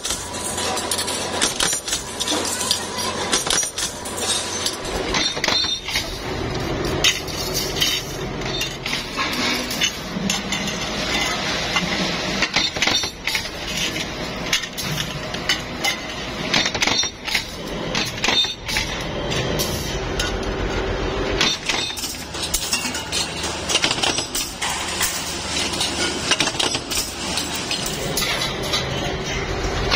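A metal press stamping spoked steel air-filter rings, with repeated metallic clanks and clinks as the steel parts are handled with pliers against ongoing workshop machine noise.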